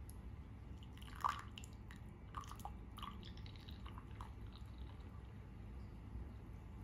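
Tea trickling faintly in a thin stream from a ceramic teapot into a ceramic mug, with a few small drips and splashes in the first three seconds.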